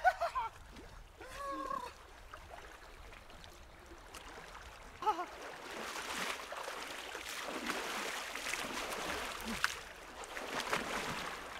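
Splashing in a shallow river as bathers scoop water over themselves, with a short vocal yelp near the start and another about five seconds in.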